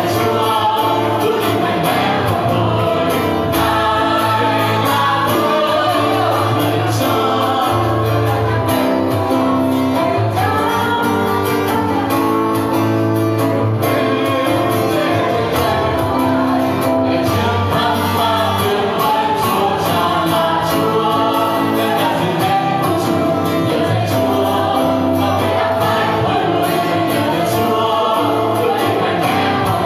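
Vietnamese Christian worship song: a man singing into a microphone while strumming an acoustic guitar, amplified through a PA, with a group of voices singing along.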